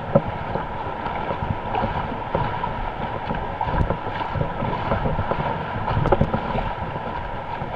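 Wind rumbling on the microphone over water splashing and sloshing around an inflatable canoe as it is paddled, with scattered irregular splashes and knocks.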